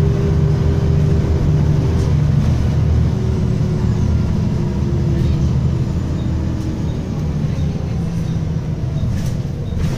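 Wright Axcess Floline single-deck bus under way, heard from inside the passenger saloon: a steady low engine drone whose pitch steps down a couple of times, with a few sharp rattles near the end.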